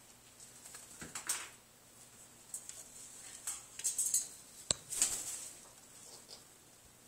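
Scattered light clicks and rustles of parrots moving about on a perch, with one sharper click about two-thirds of the way through.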